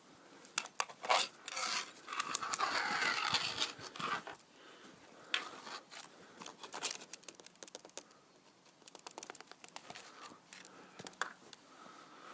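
Snow crunching and scratching in quick, irregular crackles, denser for a couple of seconds early on and then sparser, as something moves and digs through crisp snow.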